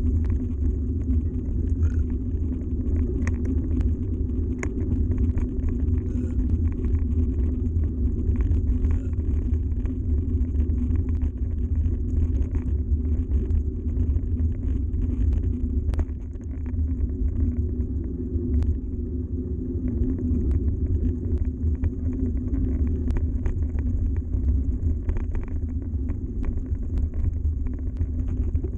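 Yeti SB130 mountain bike's tyres rolling over a gravel track: a steady low rumble with many small scattered clicks and knocks.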